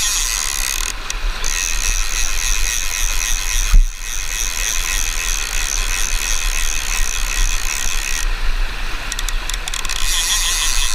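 Fly reel's click-and-pawl drag buzzing steadily as a hooked Atlantic salmon pulls line off, over the rush of river water. It eases off briefly about a second in and again near the end, and a single loud thump comes about four seconds in.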